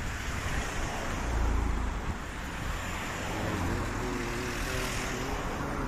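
Street traffic: cars driving past on the road, with a low rumble that swells as one passes close about a second and a half in.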